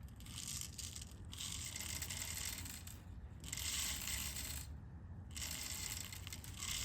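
Steel BBs being poured into the loading port of a Daisy Red Ryder BB gun: a continuous metallic rattle of small pellets clinking in, with two brief pauses about three and five seconds in.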